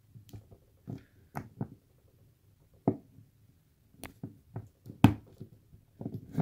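Irregular metallic clicks and taps of a hook pick being worked down into a gap in a padlock's body, with light handling knocks; the sharpest click comes about five seconds in.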